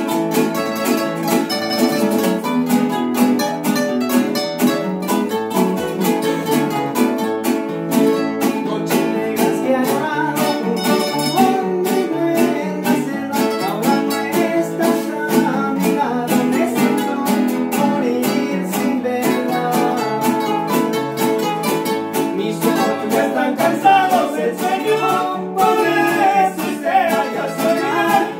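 Acoustic string ensemble of several guitars and smaller guitar-like instruments strumming and picking a lively tune together. A man's singing voice joins in, clearest over the last few seconds.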